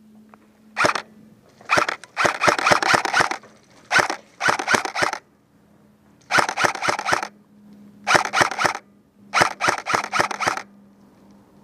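Airsoft electric gun firing in short full-auto bursts, about six bursts of rapid clicking shots, each under a second to a second and a half long, with brief pauses between them.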